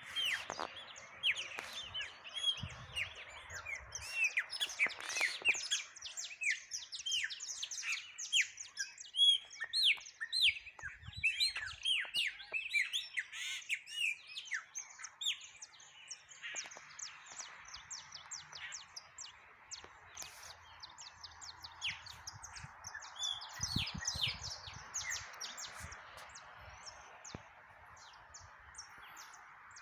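A flock of small songbirds chirping, with many quick, overlapping chirps. They are dense for about the first fifteen seconds, then thin out over a faint steady hiss.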